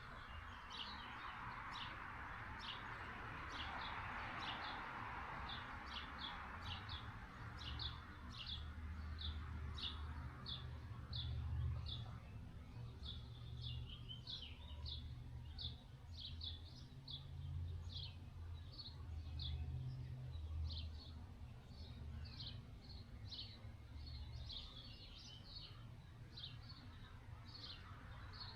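Small birds chirping, short high chirps repeating one to two times a second throughout, over a low steady rumble. A broad hiss swells in the first few seconds and again near the end.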